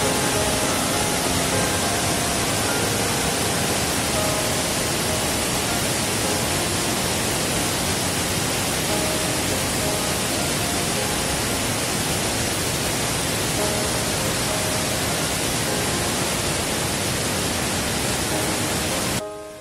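Steady roar of a waterfall's falling water, with faint music underneath. It cuts off abruptly just before the end.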